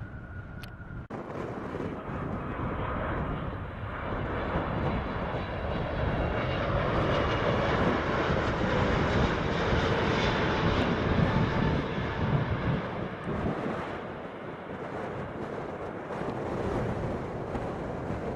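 Jet engine noise from a Boeing 777 freighter on final approach and landing: a steady rushing sound with faint whining tones that starts abruptly about a second in, swells to its loudest midway as the aircraft passes close, eases, then builds again near the end.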